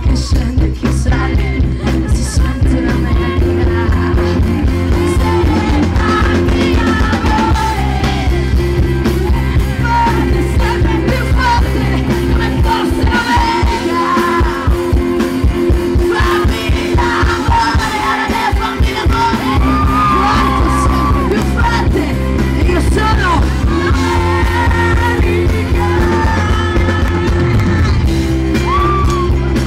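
Live rock band playing, with a lead singer over electric guitar, bass and drums. About halfway through, the low bass drops away for several seconds before the full band comes back in.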